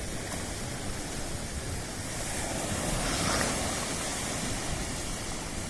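Sea waves washing on the shore. One wave swells louder to a peak about halfway through, then fades back.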